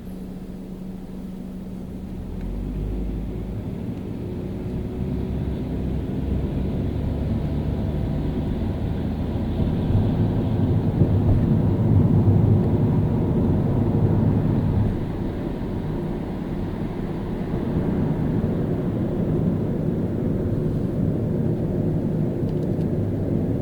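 Car driving in city traffic: a low engine and tyre rumble that builds up to its loudest a little past the middle, drops off suddenly about two-thirds of the way through, then runs on steadily.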